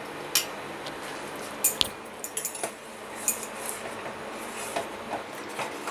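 A steel spoon clinking against a stainless-steel pot while thick rice kheer is stirred: about ten light, scattered clinks over a steady hiss.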